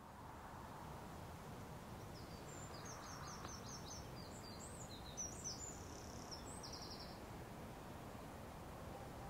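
Faint outdoor rural ambience, a steady low rushing background, with a small songbird singing a quick series of high chirps and a brief trill for a few seconds in the middle.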